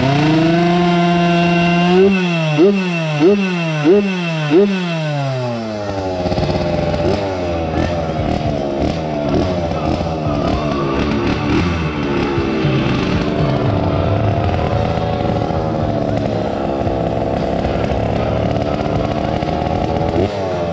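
Tomos two-stroke moped engines racing. One engine holds a steady high pitch, then surges up four times in quick succession about two seconds in and falls away. Several engines follow at once, their pitches crossing, before one wavering engine tone carries on.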